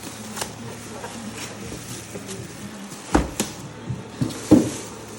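Handling noise from unpacking an espresso machine: scattered clicks, taps and packaging rustles, with a pair of louder thumps about three seconds in and another knock near the end.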